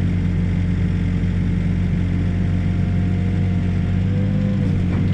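Backhoe's diesel engine running steadily, its pitch dipping slightly about four and a half seconds in.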